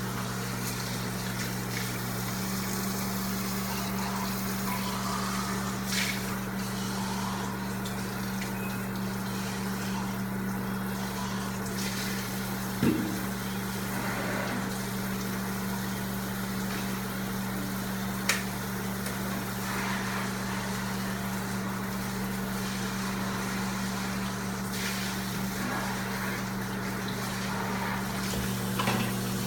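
Microwave oven running on its lowest power setting, a steady low hum, with two short sharp clicks about halfway through, five seconds apart.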